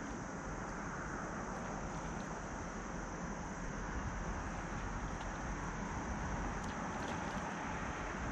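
Wind buffeting the microphone with a steady, unsteady low rumble, over a constant high-pitched hiss and a few faint clicks.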